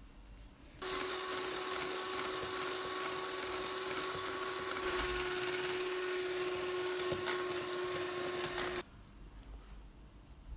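Electric kitchen appliance motor running steadily with a constant whine for about eight seconds, switching on abruptly about a second in and cutting off suddenly.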